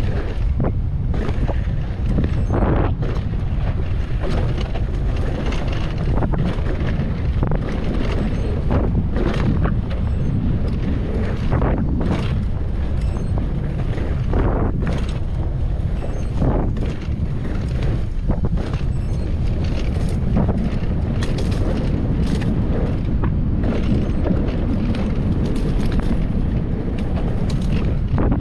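Mountain bike riding a dry dirt trail: steady wind rushing over the microphone, with the tyres rumbling over the ground and frequent brief knocks and rattles from the bike as it hits bumps.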